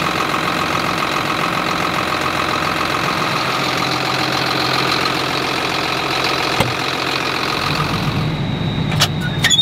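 John Deere 7920 tractor's six-cylinder diesel engine idling at a steady pitch. Near the end the sound turns muffled and lower, as heard from inside the closed cab, with a few sharp clicks.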